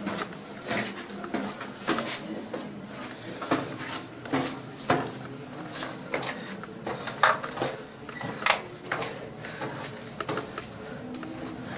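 Footsteps on a spiral staircase: a run of irregular knocks and scuffs, about one or two a second.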